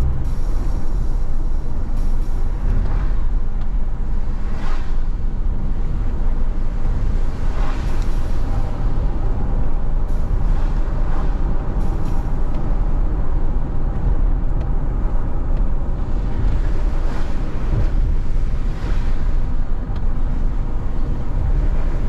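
Car driving on a wet road, heard from inside the cabin: a steady low rumble of road and engine noise, with several brief swishes as other vehicles pass.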